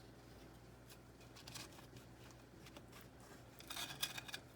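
Quiet room with faint scrapes of a utensil against the pot pie's crust, and a short run of crunchy scrapes near the end.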